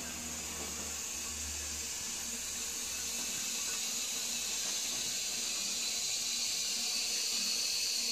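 High-level toilet cistern refilling: a steady hiss of water running in through the inlet valve, slowly getting louder as its pitch sinks a little.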